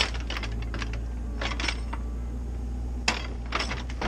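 CAT 304CR mini excavator's diesel engine running steadily, with clusters of sharp clanks and clicks about one and a half and three seconds in as the bucket works against a log.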